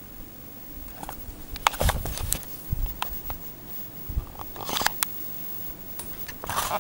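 Ceiling fan running on its third speed with a steady low hum, over irregular low rumbles and scattered sharp clicks and rustles, the loudest about two seconds in and just before the end.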